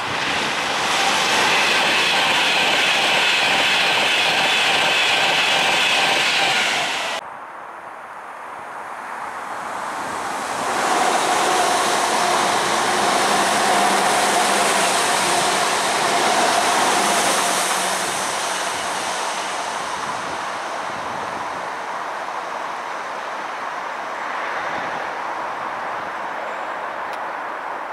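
An Avanti West Coast Class 390 Pendolino electric train passing at speed, a loud rush with a high whine, cut off suddenly about seven seconds in. Then another electric multiple unit passes, building up with a steady mid-pitched hum and slowly fading away.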